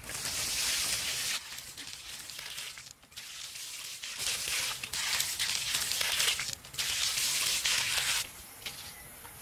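Water being poured out and splashing onto bare dirt, in several stretches of hissing splash with short breaks between them.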